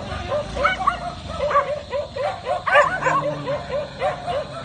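Dogs barking and yapping rapidly, several short yaps a second without a break, with a few louder yaps about two and a half to three seconds in.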